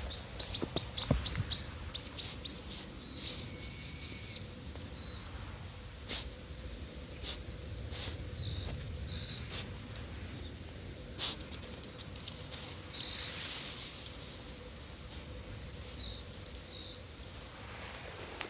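Small wild birds calling: a run of quick falling chirps in the first few seconds, a short high trill, then scattered single calls. There are a few sharp clicks and a low steady rumble underneath.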